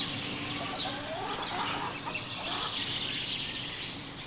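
Outdoor background noise with birds calling: a steady hiss with small chirping glides on top.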